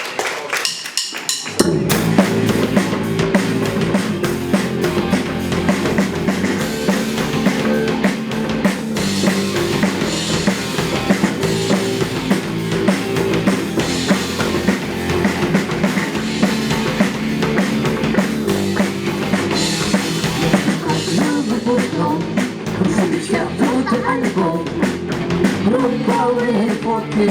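Live rock band starting a song: a few short clicks, then the full band with drum kit comes in about two seconds in and plays the instrumental intro steadily.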